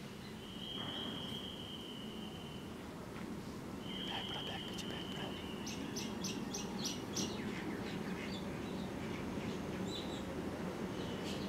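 Birds chirping, with a quick run of chirps about six seconds in, over the low steady rumble of a DEMU train drawing slowly into the station. The rumble grows louder. A long, steady high whistle sounds twice, each lasting a second or two.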